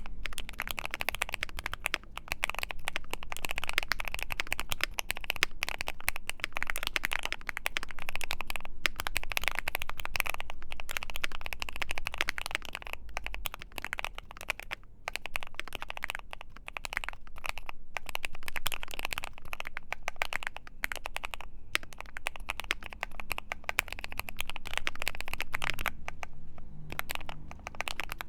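Keychron Q3 mechanical keyboard with lubed Gateron Clear linear switches, an FR4 plate and PBT Cherry-profile keycaps being typed on fast and steadily, a dense stream of keystroke clacks with a few brief pauses.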